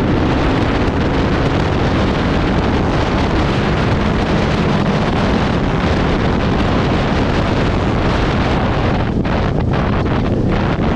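Heavy wind rushing over the microphone of a rally motorcycle on the move, with the bike's engine running steadily underneath as a faint low note.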